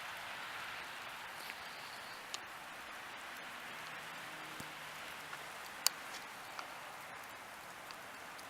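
Steady hiss of heavy wet snow falling in a gusty winter storm, with a few sharp ticks, the loudest about six seconds in.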